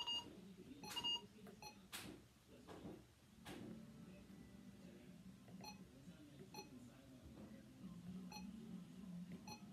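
Keypad beeps of a RadioShack 12-262 weather alert radio as its buttons are pressed during setup: about six short, high beeps at uneven intervals, with a couple of sharp button clicks in the first few seconds, over a faint low hum.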